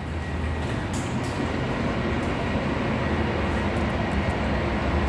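Traction elevator car travelling in its shaft: a steady low hum and rumble that grows slightly louder, with a few faint clicks.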